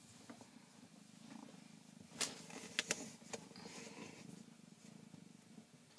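An eight-week-old kitten purring faintly and steadily, with a few sharp clicks a little past the middle.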